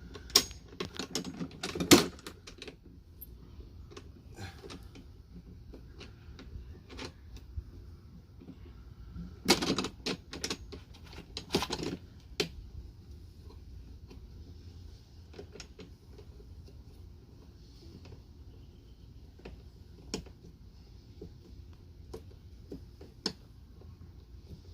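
Scattered clicks and knocks of a HART 20V 16-inch push mower's parts being handled and fitted together during assembly, loudest about two seconds in and in a short cluster around ten to twelve seconds.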